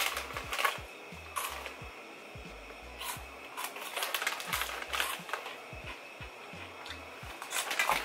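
Scattered light clicks, knocks and rustles of groceries being handled, among them a plastic chip bag.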